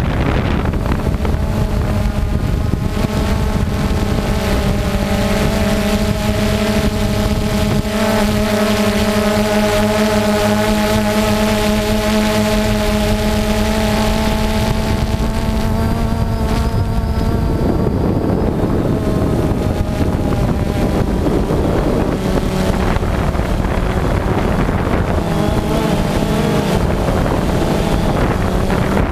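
DJI Phantom 2 quadcopter's motors and propellers whirring, recorded by the camera riding on the drone, with wind rushing over the microphone. The hum is steady for the first half, then turns rougher and wavers from just past the middle.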